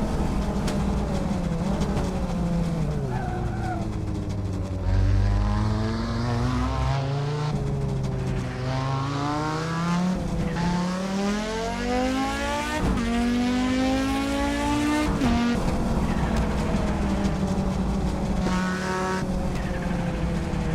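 Audi Sport quattro S1's turbocharged five-cylinder engine. Its pitch falls as the car slows over the first few seconds, then it accelerates hard through the gears, with three quick upshifts each heard as a sudden drop in pitch. It lifts off about three-quarters of the way in.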